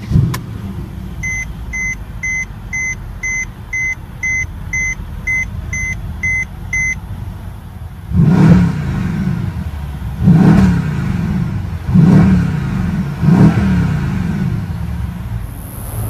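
The CLS 63 AMG S's 5.5-litre bi-turbo V8 fires up at the start and idles while an in-car warning chime beeps about twice a second for several seconds. From about halfway in, the engine is revved four times, each rev rising and falling back to idle.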